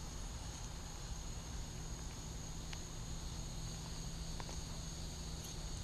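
Insects chirring at dusk: a steady high-pitched drone over a low rumble, with a few faint clicks.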